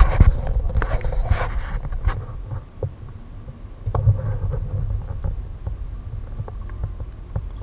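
Low rumbling thumps with many small scattered knocks and clicks as a large carp is handled in a landing net on the bank.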